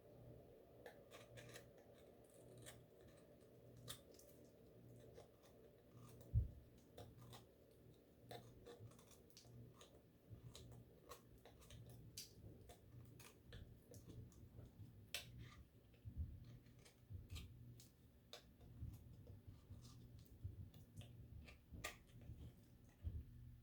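Faint, irregular small clicks, snips and light taps of objects being handled close up, over a low steady hum, with one dull thump about six seconds in.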